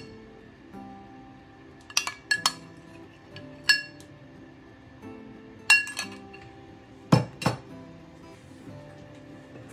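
A metal spoon knocking against a stainless steel pot, knocking lumps of thick palm oil off into the soup. It gives a series of sharp ringing clinks in short clusters, the last pair near the end with a duller knock. Soft background music runs underneath.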